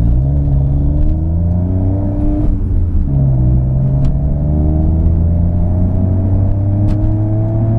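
Smart car's three-cylinder engine heard from inside the cabin, pulling under acceleration: its pitch rises, drops at a gear change about two and a half seconds in, then climbs steadily again, over steady road rumble.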